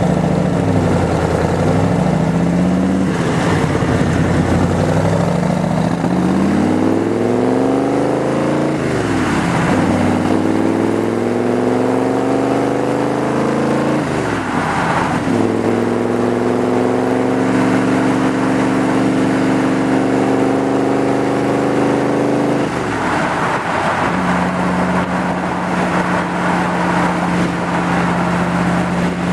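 Superformance Cobra's 7.0-litre V8, heard from the open cockpit, accelerating through the gears: the pitch climbs and drops at a shift about nine seconds in, climbs again and drops at another shift around fourteen seconds, then holds steady at cruise, dipping once more a little over twenty seconds in.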